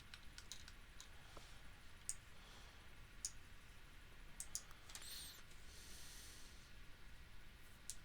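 Faint computer mouse clicks, a few sharp single clicks spaced a second or more apart over quiet room tone, with a brief soft rustle about five seconds in.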